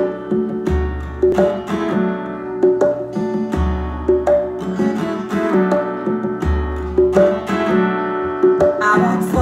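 Recorded rock music played back through Kenwood hi-fi speakers and an active subwoofer: a plucked guitar riff over a deep bass note that comes in about every three seconds.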